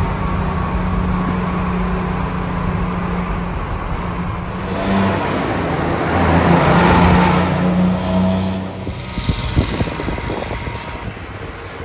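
Detroit Diesel 6V92TA two-stroke V6 diesel engine of a logging truck running. It swells louder from about five seconds in to a peak around seven seconds, then eases off with a few sharp knocks.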